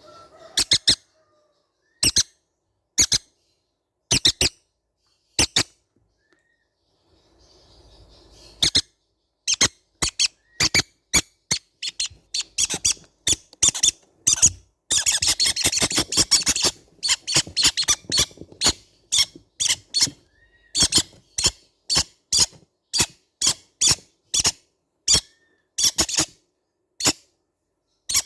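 Baby green-cheeked conures giving short, shrill squeaks, at first about one a second, then speeding up to about two a second, with a dense burst of overlapping chatter about halfway through.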